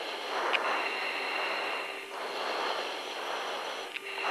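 Slow breathing on an open aircraft intercom, about one breath every two seconds, over a steady hiss with faint steady tones.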